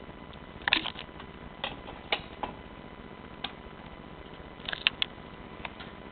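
Miele Prisma W850 washing machine: irregular sharp clicks and ticks, some in quick clusters, over a steady hiss.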